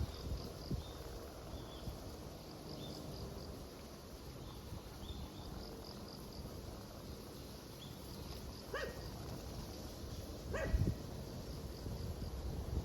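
A dog barks twice, a little under two seconds apart, in the second half. Under the barks, insects chirp in a fast, even pulse, with a low rumble of wind.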